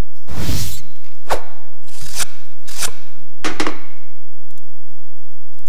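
Closing sound effects of an animated promo video, played over the hall's speakers: a short noisy burst, then four sharp knocking hits about three-quarters of a second apart, after which only a faint steady hum remains.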